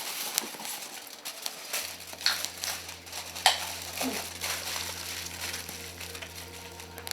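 Wood campfire crackling, with irregular sharp pops and snaps. A low steady hum comes in about two seconds in.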